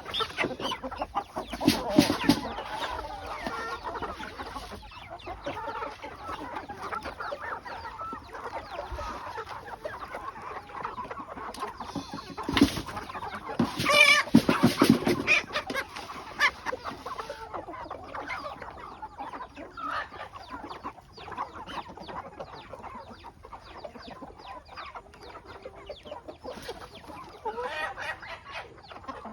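A flock of domestic chickens clucking continuously, with a few louder squawking calls around two seconds in and again around twelve to fifteen seconds in.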